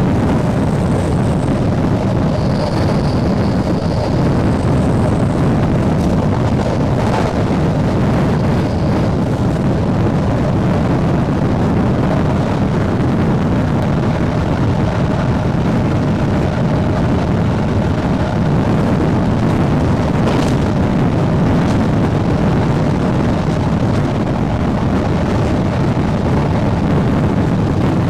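SNCB AM80 electric multiple unit running steadily at speed: a constant rumble of the train with a faint steady motor tone, and wind buffeting the microphone. A couple of short clicks come about 7 and 20 seconds in.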